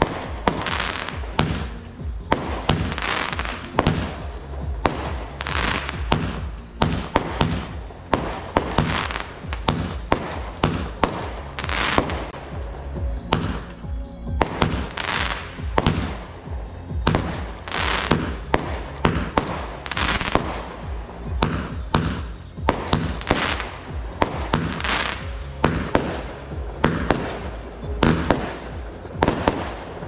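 A firework cake firing a rapid barrage of shots, about one to two sharp bangs a second, each followed by a hiss and crackle, with music playing underneath.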